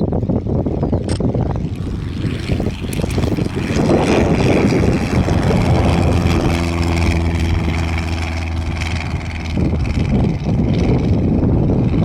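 Light single-engine propeller aircraft engine running. It grows louder about four seconds in, and its steady engine tone is clearest a little past the middle before easing.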